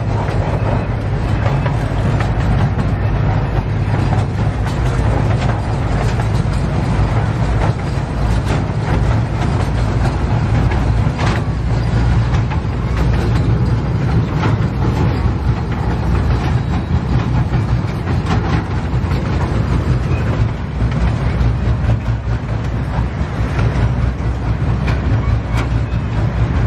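Miniature train rolling along its small-gauge track, heard from on board: a steady low rumble of the cars with faint clicks of the wheels over the rail joints.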